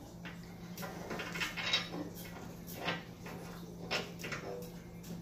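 Small metal hardware clicking and clinking as a hinge is bolted onto a tubular Jeep door by hand: a handful of separate light knocks and taps, spread unevenly.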